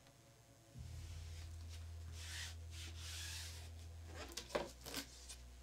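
Hands sliding and rubbing a plastic adhesive stencil sheet over a wooden board: a soft rustling scrape, then a few sharp taps and knocks near the end. A low steady hum comes in about a second in and fades back after about four seconds.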